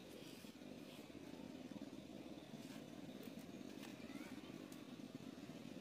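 Faint, steady low background rumble, with a few soft ticks scattered through it.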